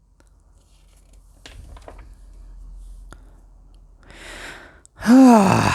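A person breathes in and then lets out a long, loud voiced sigh, 'ahh', that rises and then falls in pitch, near the end. Before that there are only a faint hum and a couple of small clicks.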